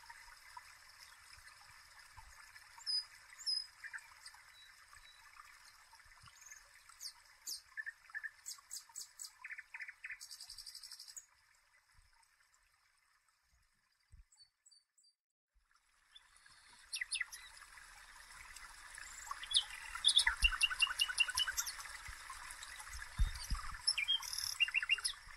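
Birds chirping and trilling over a steady hiss, like an outdoor birdsong ambience. It falls almost silent for a few seconds in the middle, then comes back with busier chirping.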